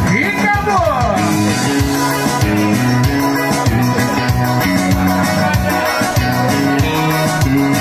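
Live forró band playing loud amplified music: keyboard and bass over a steady beat, with a falling pitch glide about a second in.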